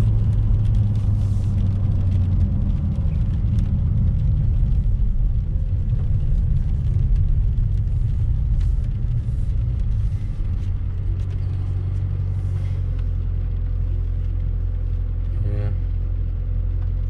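Dodge Challenger's HEMI V8 and tyres running at a steady cruise, a continuous low rumble that eases off slightly about ten seconds in.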